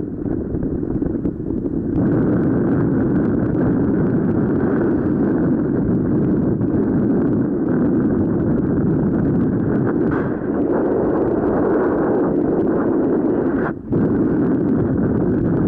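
Wind of flight rushing over the camera microphone under a paraglider: a loud, steady wind noise with no voices, dipping briefly about fourteen seconds in.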